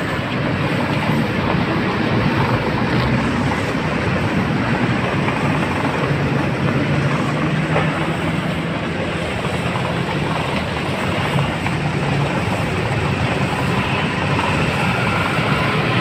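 Electric blower fan in the base of an inflatable advertising column, running steadily to keep it inflated: a loud, even rushing drone with a faint low hum.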